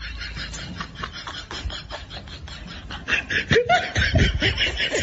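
Laughter: a rapid run of short, repeated chuckles that grows louder about three seconds in.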